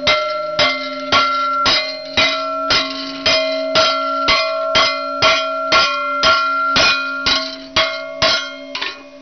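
Heavy hammer pounding a thick steel plate down over an angle-iron bending brake, about two blows a second. The steel clangs and rings on between blows, and the blows stop near the end.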